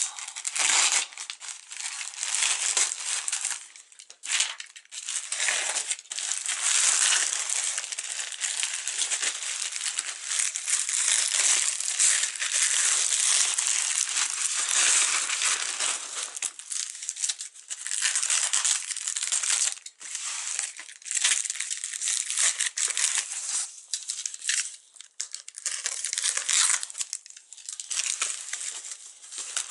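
Plastic mailer bag and foam packing wrap crinkling and rustling as a parcel is cut open and its contents pulled out, loud and uneven with a few short pauses.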